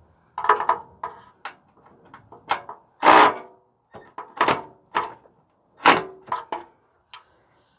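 Irregular metallic clanks and knocks, about a dozen, some ringing briefly, the loudest about three seconds in and just before six seconds: tools and hardware knocking against the exhaust heat shield and muffler during bolt work.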